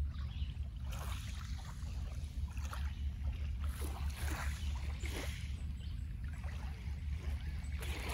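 Small waves lapping softly and irregularly at a pebble shore, with a steady low wind rumble on the microphone.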